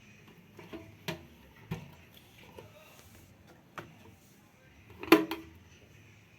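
A few separate sharp knocks and clacks of something being handled, the loudest near the end with a brief ring after it.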